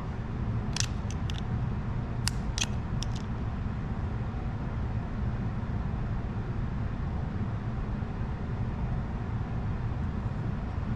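A few small sharp clicks in the first three seconds as a screwdriver pops the coin-cell battery out of a plastic car key fob, over a steady low background rumble.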